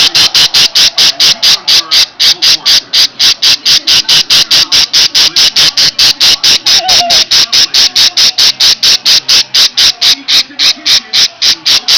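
Pet parakeet giving its alarm call, the call it makes when a person comes close: a loud, high-pitched, rapid chirp repeated steadily about five to six times a second.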